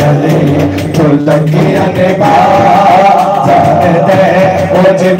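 A man singing a naat into a microphone in long held notes, the melody moving from one sustained pitch to the next.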